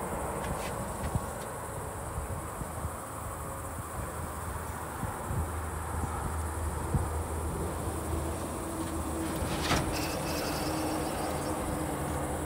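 Steady high-pitched insect drone, with a low rumble underneath and a few sharp knocks near the start and about ten seconds in.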